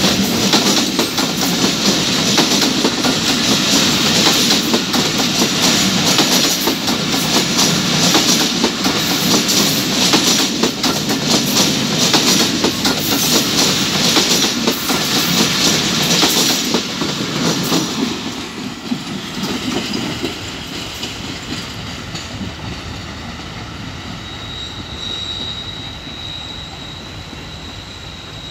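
Sagordari Express passenger coaches rolling past close by, wheels clattering over the rail joints. The sound stays loud for about 17 seconds, then fades steadily as the train draws away.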